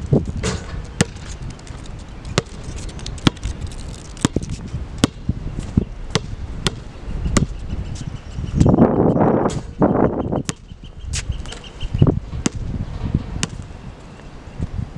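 Basketball bouncing on an outdoor court: sharp slaps at a steady rhythm of a little more than one a second. A louder rushing noise comes in for about a second and a half near the middle.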